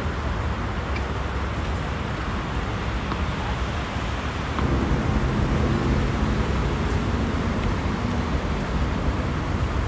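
Steady low rumble of city traffic, louder from about halfway through as a low engine hum joins it. A few faint pops of tennis balls being struck can be heard in the first half.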